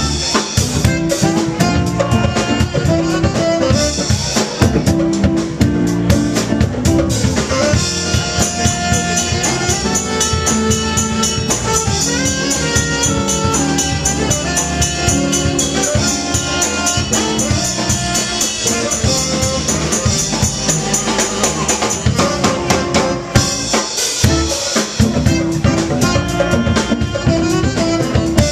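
Live band playing an instrumental passage, with drum kit prominent and held pitched notes over it.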